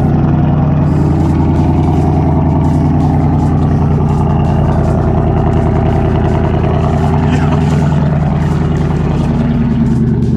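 Ford Mustang GT's 5.0 Coyote V8 running steadily at idle through its freshly modified exhaust, a loud, deep, even note.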